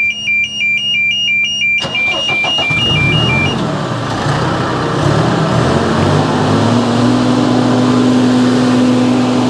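A two-tone warning alarm beeps as a Caterpillar diesel engine on a Terex tracked machine is cranked. The engine fires about two seconds in, the alarm stops a second or so later, and the engine climbs to a steady high speed near the end, because it starts up on full revs.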